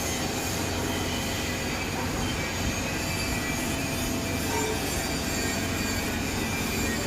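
CNC machine running: a steady mechanical noise with faint high whines that shift in pitch and a low hum beneath.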